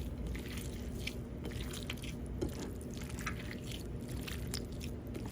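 A bhorta (mashed food) being kneaded and mixed by hand in a bowl: irregular wet squelches and soft clicks.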